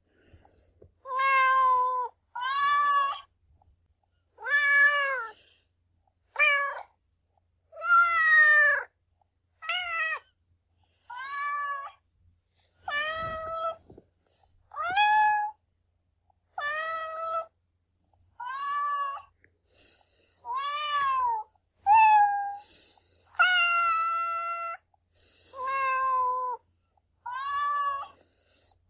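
Domestic cat meowing over and over: about sixteen separate meows a second or two apart, each a short call that bends in pitch, some higher and some lower, with one longer, steadier meow near the end.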